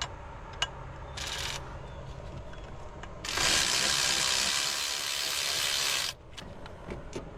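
A few light metallic clicks, a short hiss about a second in, then a loud, steady hiss lasting about three seconds that cuts off suddenly.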